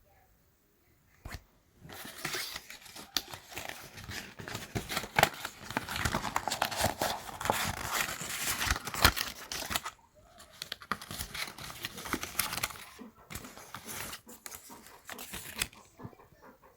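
Packaging being torn open and crumpled: crinkling rustle with sharp tearing clicks, starting about two seconds in, breaking off briefly near the middle, then going on more quietly.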